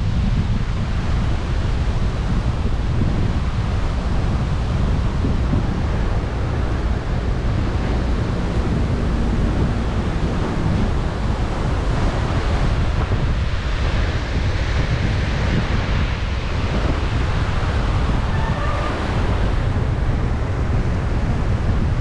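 Surf breaking on a beach, mixed with wind buffeting the microphone as a steady low rumble.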